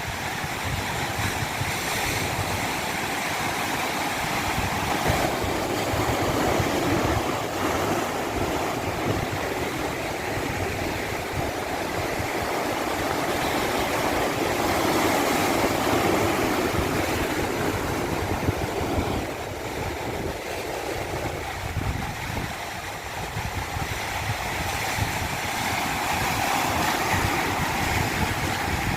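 Rushing water in a steady wash, swelling and easing slowly every several seconds.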